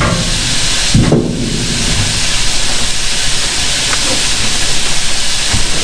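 A steady, loud hiss, with a short knock about a second in.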